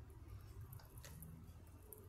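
A dwarf hamster nibbling food: a few faint clicks around the first second, over a low hum.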